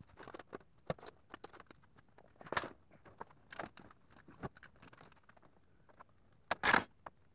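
Scattered workshop handling sounds: light clicks, taps and rustles from footsteps and from tools and the metal strapping on the wooden barrel. A sharper click, then a short louder rustle, comes near the end.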